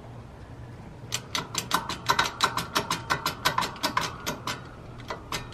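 Rapid metallic ratcheting clicks, about six a second, from working the hydraulic bottle-jack shop press while a jackshaft bearing is being pressed in. The clicking starts about a second in, stops for a moment, and starts again near the end.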